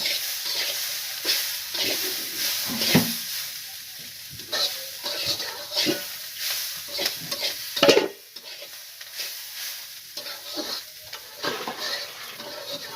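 Food sizzling in hot oil in a pan while a utensil stirs and scrapes it in repeated short strokes. Two sharper knocks of the utensil on the pan stand out, about three and eight seconds in.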